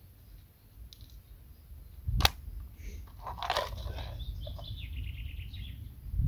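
Plastic tackle box being handled and rummaged through, with one sharp click a little after two seconds and crunching, rattling handling after it. A bird trills in the background in the second half.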